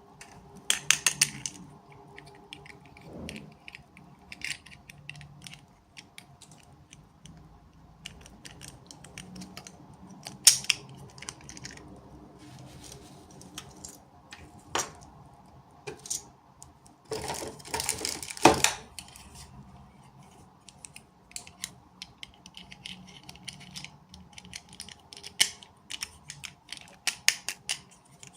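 Hands unboxing small toy packaging: scattered plastic clicks and taps, with bursts of crinkling wrapper about a second in and again about two-thirds of the way through.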